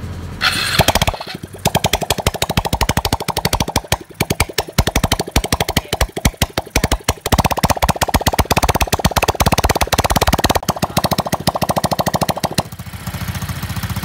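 Freshly reassembled Honda Wave S110 single-cylinder four-stroke engine running on the stand, with a rapid, even run of sharp firing pulses. Near the end it settles into a smoother, steadier idle.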